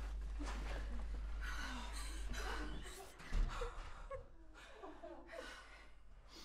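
Frightened, shaky breathing and gasps, with faint whimpering sobs, over a low hum that drops away about three seconds in. A dull thump comes just after the hum stops.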